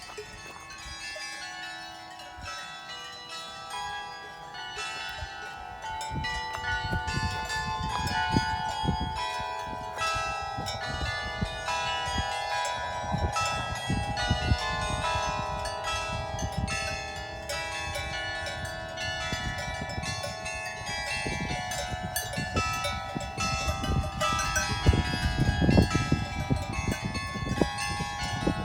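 Tellsplatte carillon of tuned bells playing a melody, many bell notes ringing and overlapping, with cow bells clanking along. The sound grows louder from about six seconds in.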